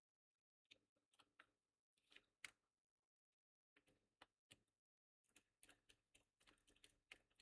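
Faint, irregular clicks and light scraping of small metal and plastic laptop parts being handled, as screws are worked out of an SSD's drive bracket.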